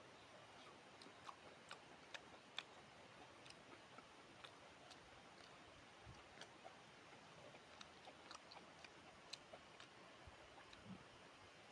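Faint chewing: soft irregular crunching clicks of food being bitten and chewed, a few every second, over a low background hiss.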